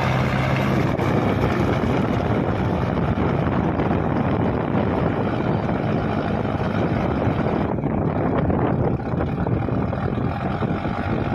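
Mahindra Arjun Novo 605 DI 4WD tractor's diesel engine running steadily under heavy load as it drags a loaded trolley through deep mud.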